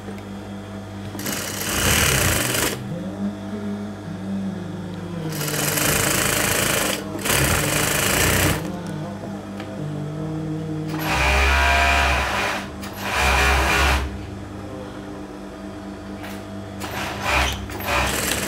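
Juki industrial sewing machine stitching fabric in about six short runs of one to two seconds each, starting and stopping as the fabric is guided, with a steady low hum between runs.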